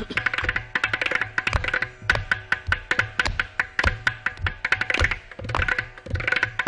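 Mridangam and ghatam (clay pot drum) playing a fast Carnatic rhythm together: dense, rapid hand strokes over a deep drum tone, with a ringing higher tone that swells near the start and again near the end.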